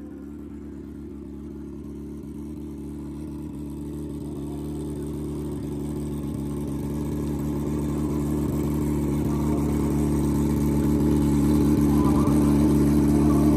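Twin-turbo Suzuki GSX-R drag bike's inline-four engine idling steadily, growing gradually louder as the bike comes closer.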